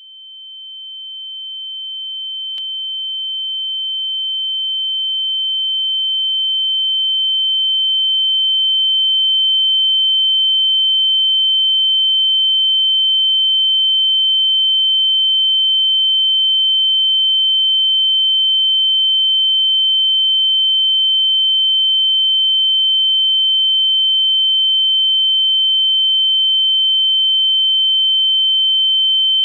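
Ear-ringing (tinnitus) sound effect: a single steady, high-pitched pure tone that swells up from nothing over roughly the first ten seconds and then holds at one level.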